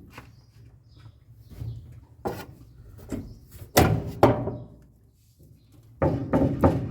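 A few sharp knocks and clunks, the loudest pair about four seconds in, from dryer parts (the damaged idler pulley and drum rollers) being handled and turned over in the opened machine. A louder stretch of handling noise follows near the end.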